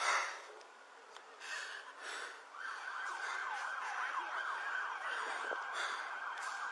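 Emergency vehicle siren coming in about two and a half seconds in, a rapid up-and-down yelp that carries on steadily. Before it, a few short loud breaths or rustles.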